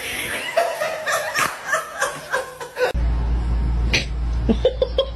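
People laughing in short bursts for about three seconds. The sound then cuts abruptly to a steady low hum with a string of short high-pitched sounds near the end.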